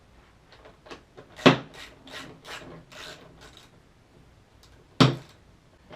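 Knocks and scraping as a heavy skateboard wheel is worked off its truck axle: two sharp knocks, about a second and a half in and again about five seconds in, with a run of short rubbing, scraping strokes between them.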